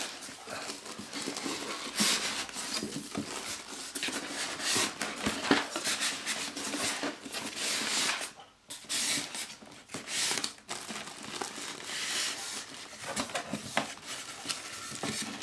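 Cardboard packaging scraping and plastic wrap crinkling in irregular rustles as a shrink-wrapped massager is slid out of its box and card inserts, with a brief pause about eight seconds in.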